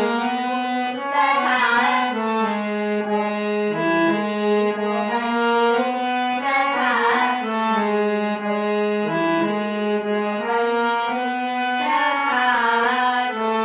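Instrumental devotional music: held reedy melody notes over a steady low drone, with a brighter flourish about every five and a half seconds, repeating the same short phrase.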